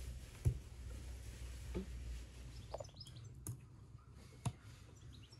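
A few soft knocks and taps from handling a metal baking pan while strawberry halves are pressed into the batter, the first the loudest. Small birds chirp from about halfway through.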